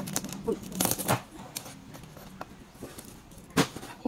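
Large knife chopping through crispy air-fried pork belly on a wooden chopping board: a few sharp crunches as the blade breaks the crackling skin and hits the board, the loudest near the end.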